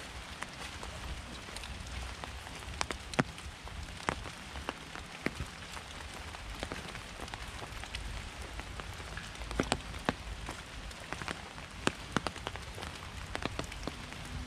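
Rain falling: a steady hiss with irregular sharp drip ticks over a low rumble.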